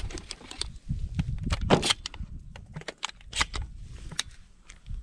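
A string of sharp clicks and knocks at irregular intervals, the loudest just under two seconds in.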